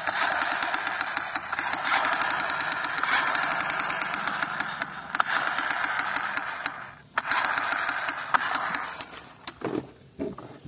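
A 'Spider Hero Fire Blaster' toy rifle, trigger held, sounds its electronic rapid-fire effect: a fast, steady rattling buzz. It breaks off briefly about seven seconds in and stops for good about nine seconds in, followed by a few knocks.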